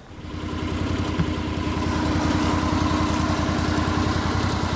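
Side-by-side UTV's engine running steadily with even firing pulses, swelling over about the first second.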